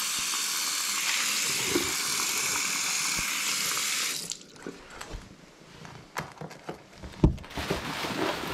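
A bathroom sink tap runs steadily into a stainless-steel bowl and is shut off about four seconds in. A few light clicks and knocks follow.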